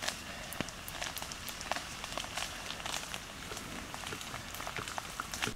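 Water dripping off the trees after rain, an irregular patter of drops on the leaf litter.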